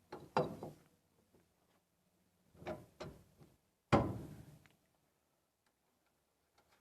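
A few sharp knocks and clanks, each with a short ring, from tools and steering parts being handled while a tie rod end is refitted. Two come near the start, another pair almost three seconds in, and the loudest single knock about four seconds in.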